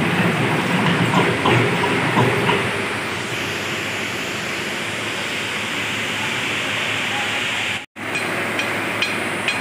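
Tractor engine driving a rear-mounted earth auger, a steady mechanical running noise with knocking and clattering in the first two or three seconds. It cuts off sharply about eight seconds in, followed by a few light ticks.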